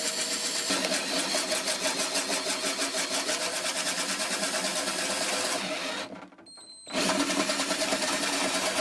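Electric drill boring a large hole through a plastic case lid with a wood bit, the motor running steadily with a fast, even rhythm as the bit cuts. It stops briefly about six seconds in, then starts cutting again.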